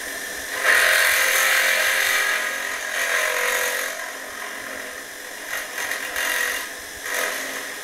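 Giraud powered case trimmer cutting a .308 brass case: the electric motor runs while the case is pushed down onto the spinning carbide cutter, which trims and chamfers the neck in one step. The result is a rasping cutting noise that jumps up about half a second in, rises and falls several times, and eases off near the end.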